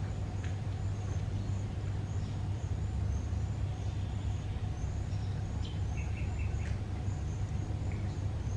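Steady low drone of traffic on the concrete bridge overhead, with small birds chirping faintly and repeatedly, and a quick run of chirps about six seconds in.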